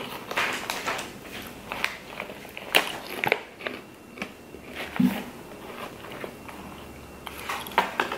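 Potato chips crunching as they are chewed, mixed with the crinkle of the foil chip bag being handled. Sharp crackles come thick in the first few seconds, thin out in the middle, and pick up again near the end.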